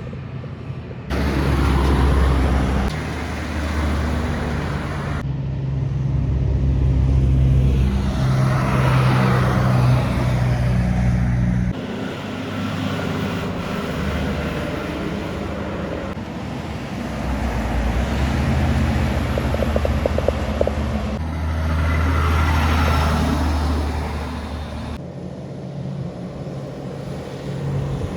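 Heavy trucks passing on a highway, their diesel engines droning low and steady, with tyre noise swelling as each one goes by. The sound changes abruptly several times.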